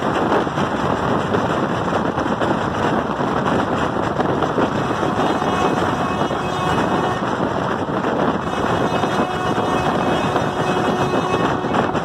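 Steady running noise of a moving train heard from aboard: a continuous rumble of wheels on the rails mixed with rushing wind.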